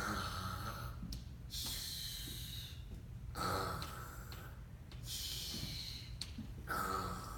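A person snoring, three breaths about three and a half seconds apart: each is a snore on the in-breath followed by a hissing out-breath.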